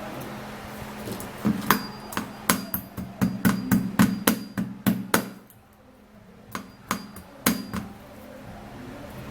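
Dry moringa seed pod being struck to crack it open: a quick run of sharp knocks, a short pause, then a few more knocks.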